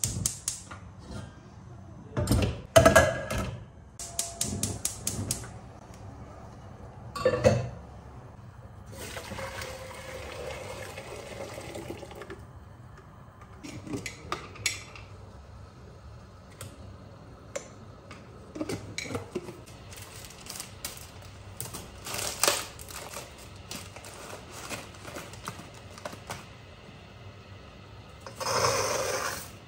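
Kitchen handling sounds as a stainless steel pot of water is readied for pasta on a gas hob: metal clanks of the pot, a run of quick, even clicks, a few seconds of steady hiss, and salt being shaken in. Near the end comes a short rush as dry spaghetti is dropped into the pot.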